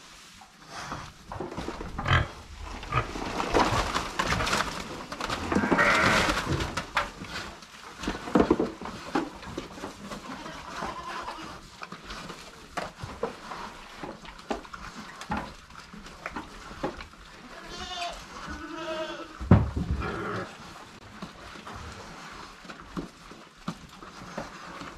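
Livestock calling in a barn: pigs grunting and goats bleating on and off, with a few bleats close together near the end.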